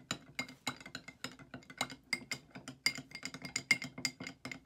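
Metal spoon stirring gummy candy mixture in a small glass bowl, clinking against the glass several times a second with short ringing notes.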